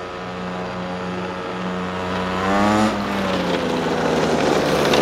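Small two-stroke petrol engine of a half-scale RC go-kart running under way, getting louder as the kart approaches; its pitch climbs a little over two seconds in, then sinks. The new engine is being run in below full throttle.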